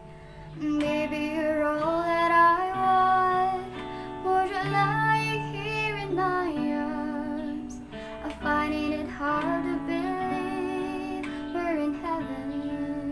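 Music: a voice singing a melody over held notes and plucked guitar.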